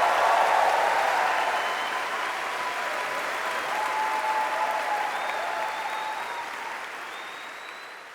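Audience applauding after an orchestral piece ends. It is loudest at first, then slowly dies away and fades out near the end.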